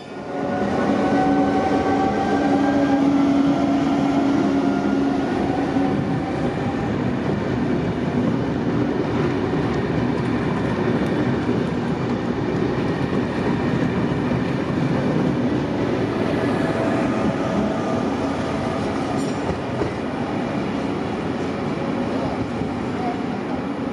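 Trenitalia Rock double-deck electric multiple unit accelerating along a station platform. The whine of its electric traction equipment climbs in pitch over the first few seconds, over a steady rumble of wheels on rail.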